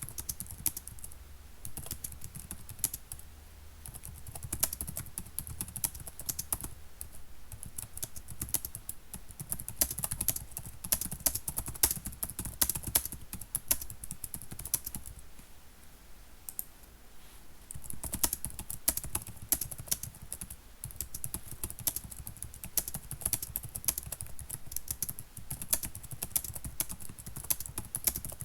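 Typing on a computer keyboard: a quick, uneven run of key clicks that goes on throughout, lighter for a few seconds about halfway through and then busy again.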